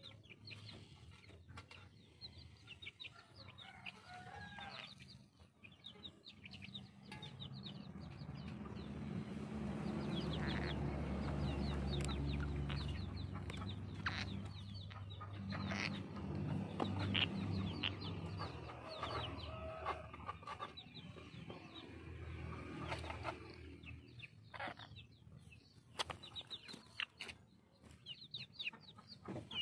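Chickens clucking, with short high chirps and clicks scattered through. A low rumble swells up about a third of the way in, is loudest in the middle, and fades out near the end.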